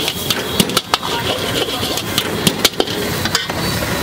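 Metal ladle scraping and clanking against a large wok as vegetables are stir-fried over an open flame, several sharp clanks over a steady sizzling hiss. The clanks stop shortly before the end.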